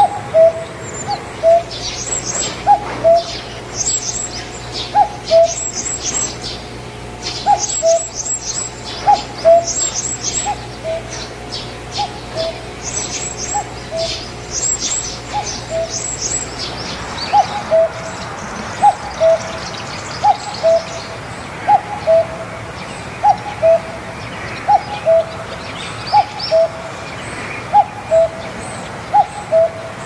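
Common cuckoo calling its two-note "cuck-oo", repeated about once a second, the second note lower than the first. Other small birds chirp over it through the first half.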